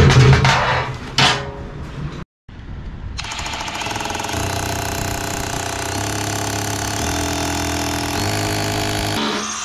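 A few knocks in the first second and a half. Then, from about three seconds in, a battery-powered power tool runs steadily under load for about six seconds, its pitch stepping down and back up a few times.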